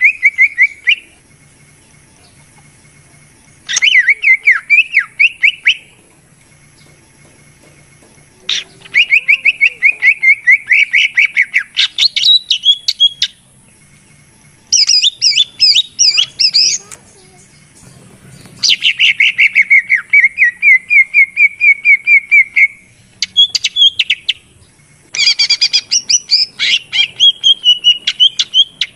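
Cucak ijo (green leafbird) singing in loud phrases of fast rattling trills, with some higher chattering notes mixed in. About seven phrases of one to four seconds each, separated by short pauses.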